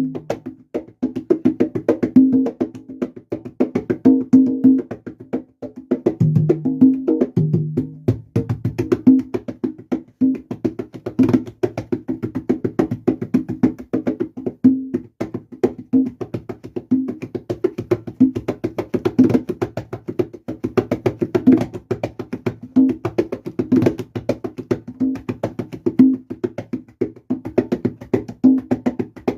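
Congas playing a steady salsa groove: fast, evenly spaced strokes with pitched open tones, the pattern repeating about every two seconds.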